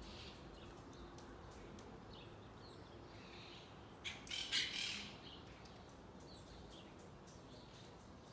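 Monk parakeets calling: faint scattered chirps, and one louder harsh squawk about four seconds in, lasting about a second.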